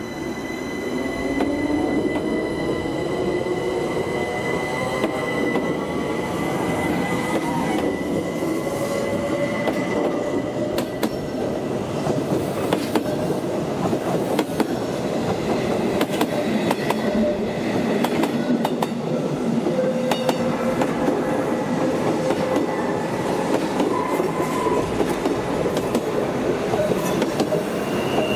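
Berner Oberland Bahn electric passenger train rolling past on curved track: wheels squealing in gliding tones and clacking over rail joints, under a steady rolling noise. A high steady whine fades out about ten seconds in.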